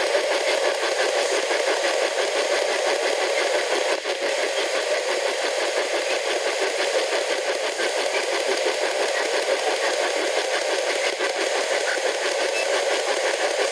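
P-SB11 spirit box sweeping through radio frequencies, putting out a steady hiss of static chopped up rapidly and evenly by the fast sweep.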